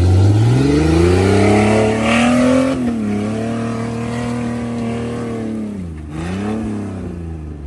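Off-road rig's engine revved hard under full throttle as the driver guns it over a rock obstacle. It climbs sharply in pitch over the first few seconds and holds high, dips briefly about six seconds in, revs up again, then eases off.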